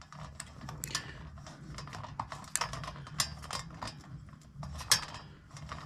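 Irregular small clicks and scrapes as a crystal ball is twisted by hand onto the threaded top of a metal solar garden-light flower, with one sharper click about five seconds in.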